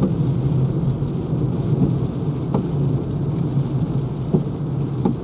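Inside the cabin of a Renault Zoe electric car driving on a wet road in the rain: a steady low rumble of tyres on the wet road and rain on the car, with a few faint knocks.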